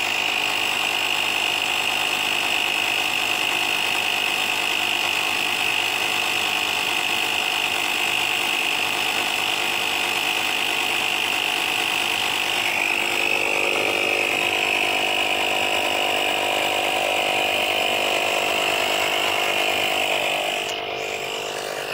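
Portable plug-in tire inflator's compressor running steadily as it pumps up a nearly flat car tire from about 6 PSI. Its tone shifts slightly about two-thirds of the way through, and it gets a little quieter near the end.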